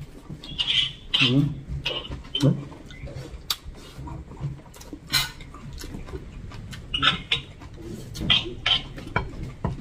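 A person eating with their hands: scattered mouth smacks and slurps while sucking food off the fingers, with a few light clinks of dishes and utensils and a couple of brief murmured voice sounds.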